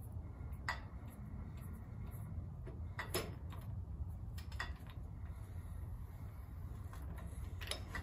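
Hand-tapping threads dry into a cast hub, with the tap turned by a bar handle in a tapping guide stand: a handful of sharp metallic clinks from the handle and tooling, the loudest about three seconds in, over a steady low hum.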